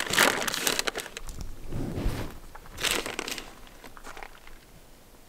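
Plastic food bags crinkling and rustling in irregular bursts as shredded cheese is shaken from its bag into a chip bag for a walking taco.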